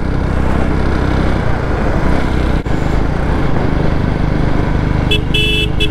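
Royal Enfield Bullet's single-cylinder engine running steadily while riding, with a dense steady road noise. Near the end a horn gives a few short beeps in quick succession.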